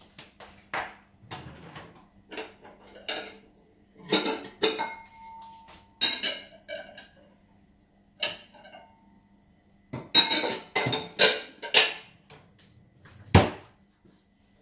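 Kitchen dishes and utensils being handled: a run of sharp clinks, knocks and clatters, busiest around ten to twelve seconds in, with one loud knock near the end. A faint steady hum sits underneath.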